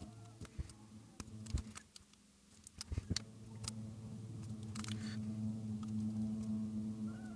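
Small clicks and crinkles of shiny masking tape being pressed and smoothed down by hand and with a plastic stick around a speaker label. From about three seconds in a steady low hum sits under the clicks.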